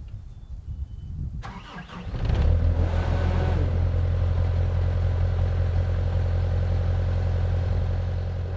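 Cat 289D skid steer's diesel engine being started cold. The starter cranks about a second and a half in, the engine catches around two seconds and settles into a steady idle.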